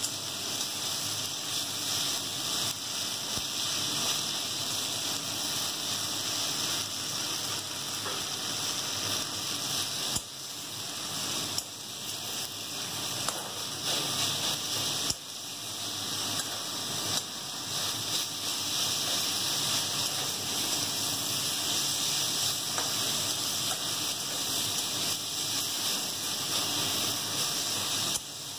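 Chopped water spinach (kolmi shak) sizzling as it fries in oil in a steel kadai while being stirred with a metal spatula: a steady hiss that briefly dips a few times.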